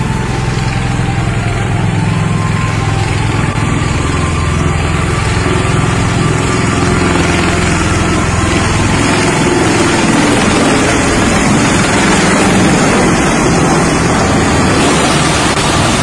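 Bell Boeing V-22 Osprey tiltrotor hovering in helicopter mode. Its twin turboshaft engines and proprotors make a steady heavy drone, with a rushing noise that grows louder as it passes close about two-thirds of the way through.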